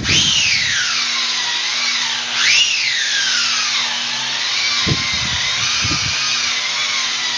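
Handheld electric rotary tool working marble, its motor whine sweeping down in pitch, climbing again about two and a half seconds in, then settling lower, with a few low knocks near the middle.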